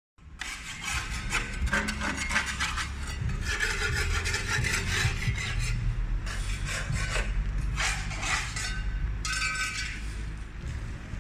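Rasping, scraping strokes of a hard tool worked against a rough surface, in long stretches with short breaks, over a steady low hum.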